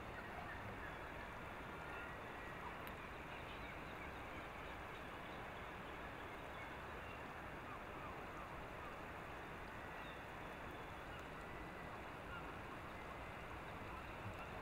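Faint, short bird calls over a steady background hiss.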